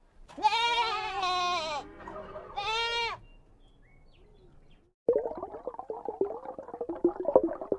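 An animal calling twice with bleat-like calls: a long call of about a second and a half whose pitch wavers, then a shorter one. Background music starts about five seconds in.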